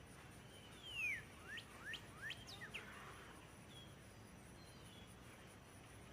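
Faint bird chirps: one falling note about a second in, then a few quick upward-sweeping chirps, followed by faint background hiss.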